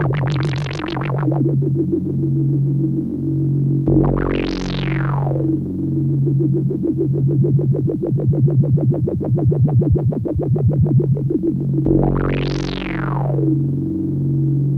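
Synthesizer background music: held low notes under a pulsing rhythm, with a sweeping swell that rises and falls twice, about eight seconds apart.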